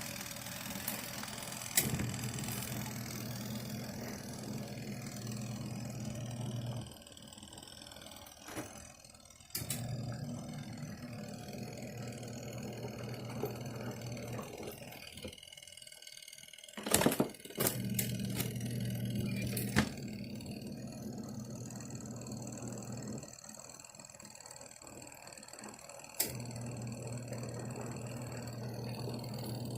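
Portable twin-tub washing machine's motor humming in spells of about five or six seconds, stopping for two or three seconds between spells, with sharp clicks around the restarts, as in a wash cycle running on its timer.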